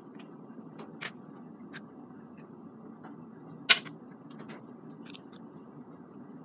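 Scattered light clicks and crinkles of vegetables and a seaweed sheet being handled on a plastic cutting board, with one sharp click about three and a half seconds in, over a steady low hum.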